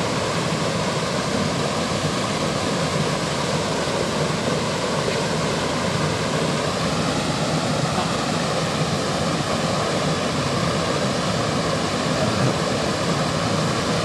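Small waterfall pouring over granite boulders into a plunge pool: a steady, unbroken rush of falling water.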